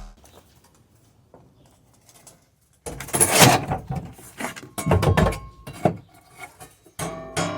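Clattering and banging of hard objects: a few faint knocks, then a burst of loud clatter about three seconds in, followed by several more sharp bangs.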